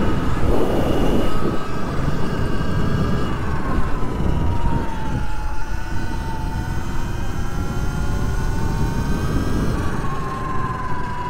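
Surron X electric dirt bike's motor whining over heavy wind and knobby-tyre rumble while riding on asphalt. The whine's pitch sinks as the bike slows about four seconds in, climbs again, and steps up near the end.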